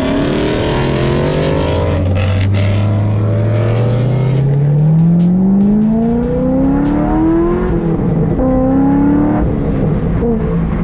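A car engine accelerating hard through the gears, heard from the driver's seat. The pitch drops at an upshift about two seconds in, climbs steadily for about five seconds, drops at a second upshift, then holds level.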